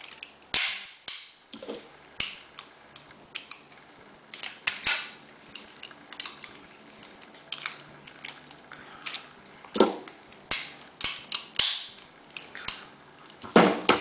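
Rock Island Armory 1911 .45 ACP pistol being handled and put back together by hand: over a dozen irregular metallic clicks and clacks of the slide, frame and parts, the loudest near the end.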